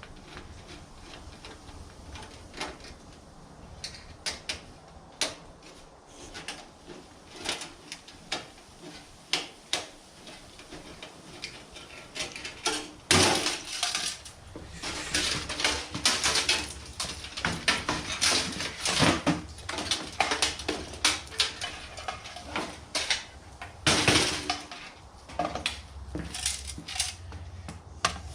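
Metal parts and hand tools clinking and clattering as a computer is taken apart for scrap: scattered clicks at first, then a busier run of knocks and rattles from about halfway, with the loudest knocks about 13 and 24 seconds in.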